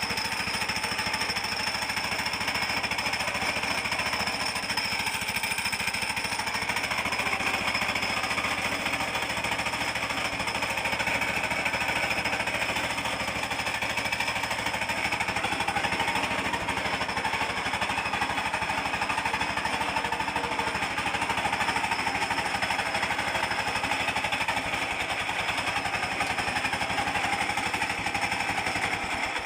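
Gear reducer of a homemade mini-tractor running at high revs with a steady loud hum and fast rattle. The owner takes it for a pair of gears that do not mesh properly with each other.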